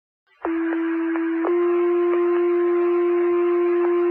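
Two-tone sequential fire paging tones over dispatch radio, alerting the fire station to respond. Starting about half a second in, a steady tone sounds for about a second, then a slightly higher tone is held for about three seconds.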